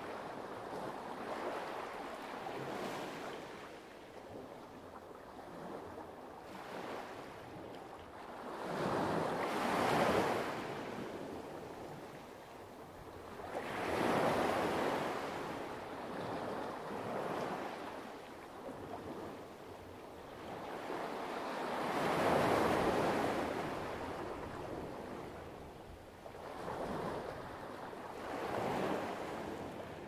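Light waves washing onto a pebble beach, rising and falling in slow surges every several seconds, with four main swells, the strongest about a third of the way in and about three quarters of the way in.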